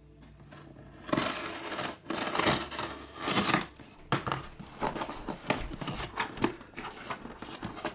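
Cutting into the sealed packaging of a GoPro Hero 10 box: a run of irregular scraping, snipping and crinkling sounds that starts about a second in.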